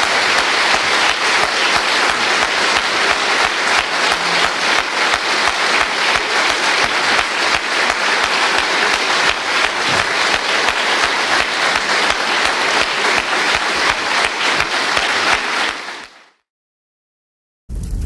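A large audience applauding steadily, many hands clapping together, at the close of a speech. The applause fades out about sixteen seconds in, followed by a moment of silence and a low rumble starting right at the end.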